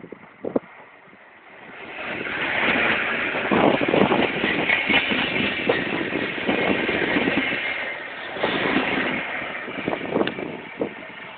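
TerraSur UTS 444 electric multiple-unit train passing close by. Its noise builds about two seconds in and fades near the end, with wheels knocking over rail joints and switch points as it crosses over to another track.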